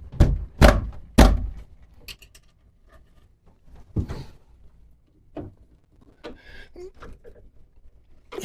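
Wooden knocks and thumps as a piece is fitted and handled on an old pine secretary: four loud knocks in quick succession in the first second or so, then scattered lighter knocks and short scrapes.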